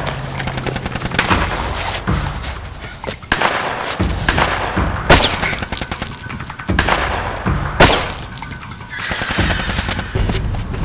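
Film gunfight sound effects: rapid volleys of gunshots and automatic fire, with two louder blasts about five and eight seconds in, over a low music bed.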